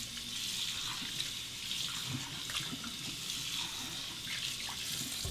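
Hot water running steadily from a tap into a ceramic shaving bowl to warm it before lathering; it shuts off suddenly at the end.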